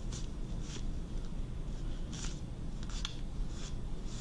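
A lint brush swept over suit-jacket fabric at the shoulder in a series of short, hissy brushing strokes, close to the microphone.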